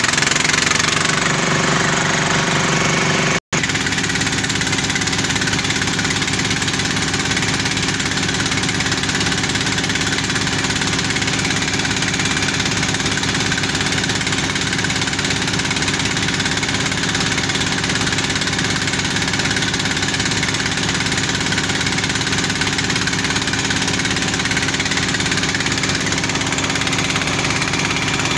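Engines of a small portable water-well drilling rig and its mud pump running steadily under load while drilling, with an even, fast firing pulse. The sound drops out for an instant about three and a half seconds in.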